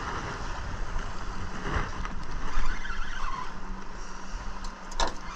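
Outboard motor idling steadily under low wind rumble on the microphone, with a couple of sharp clicks near the end.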